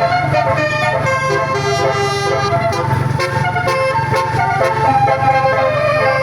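Basuri multi-tone 'telolet' bus horn playing a melody of stepped notes, each held for about a third to half a second, over a steady low hum.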